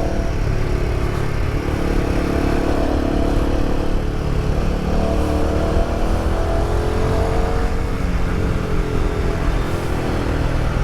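Royal Enfield Himalayan 450's single-cylinder engine running under way through a prototype aftermarket exhaust, louder than stock. Its pitch climbs gently through the middle and eases back a little later.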